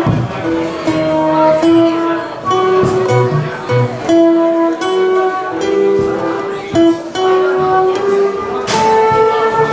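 Live world-fusion band playing: strummed acoustic guitar and drum kit under a melody of long held notes from flute and saxophone.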